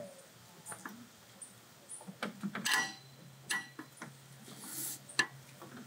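A few light metallic clinks and clicks of a socket and extension being fitted to a cylinder head bolt, two of them ringing briefly, with a faint steady low hum from about halfway.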